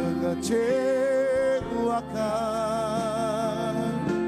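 Worship song: a singer holding long, wavering sung notes over instrumental backing, ending on the sung word "mengecewakan".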